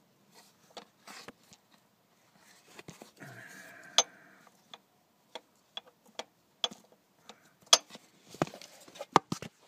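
Irregular sharp clicks and knocks of metal tools and car parts being handled, with a brief creak about three seconds in and the loudest knocks near the middle and towards the end.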